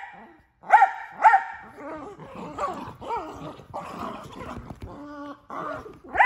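Miniature Australian Shepherd barking during tug play: two sharp barks about a second in, then a few seconds of wavering whining vocalizing, and another bark right at the end.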